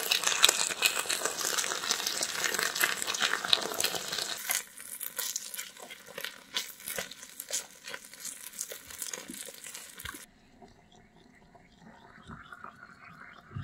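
Spicy baby octopus in sauce sizzling on a miniature cast-iron plate: a dense crackling hiss that drops to a quieter, still crackling sizzle about four and a half seconds in while it is stirred, then cuts off abruptly about ten seconds in.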